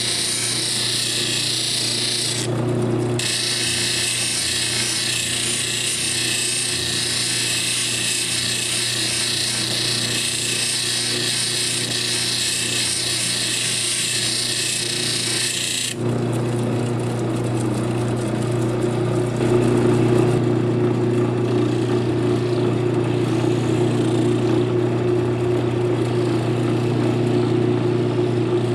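Lapidary lap machine's motor running with a steady hum while a dopped star sapphire is held against the spinning 1200 lap, giving a high, even scraping hiss. The scraping stops briefly about three seconds in, then stops for good about halfway through, leaving only the motor hum.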